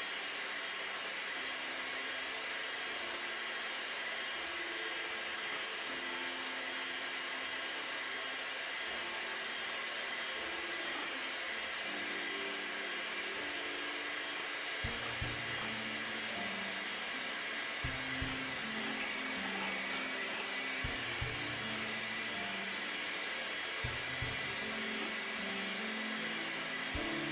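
Electric hand mixer running steadily at medium speed, its beaters whipping warmed whole eggs and sugar into a thick, pale foam for a genoise sponge. Soft background music plays underneath.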